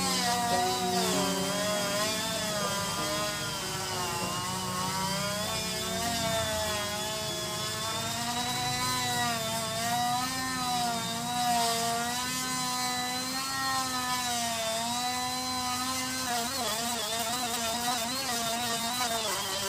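Corded rotary tool with a sanding drum grinding the holes of a clear plastic tray: a steady high-pitched motor whine whose pitch wavers up and down as the drum bites into the plastic.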